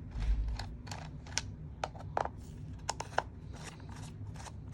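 Irregular small clicks and taps of parts being handled while an airsoft CZ Scorpion Evo is taken apart, with a low thump just after the start.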